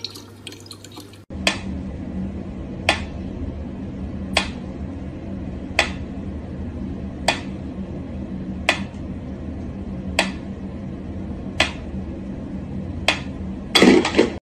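Mechanical pendulum metronome ticking slowly, one sharp tick about every second and a half, over a steady low hum, with a louder scuffle near the end. For the first second, water runs from a tap.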